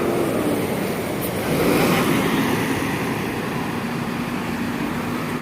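Intercity bus driving past: a steady wash of engine and tyre noise that swells about two seconds in and then eases off.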